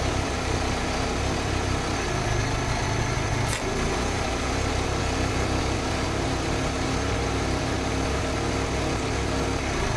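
An AHP TIG welder's arc running a continuous weld on steel tubing: a steady buzzing hiss with a low hum underneath, with a brief break about three and a half seconds in.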